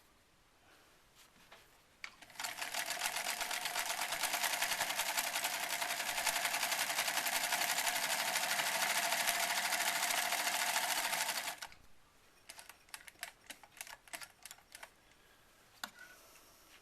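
Singer 306W sewing machine running steadily under its half-amp motor for about nine seconds, stitching a test seam at a shortened stitch length, then stopping abruptly. Light clicks and taps follow as the machine is handled.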